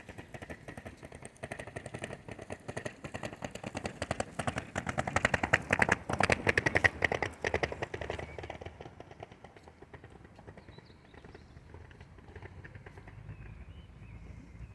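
Passenger train rolling past on the track, its wheels clattering rapidly over rail joints and points. The clatter grows louder to a peak about six to seven seconds in, then fades to a low rumble.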